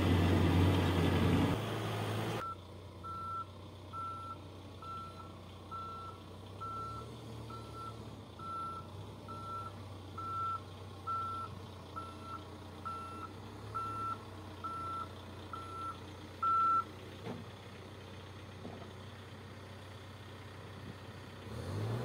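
Case backhoe loader's diesel engine running loudly, then after a sudden drop in level a quieter steady engine hum. Through most of that quieter stretch a reversing alarm beeps evenly, a little more than once a second, and stops a few seconds before the end.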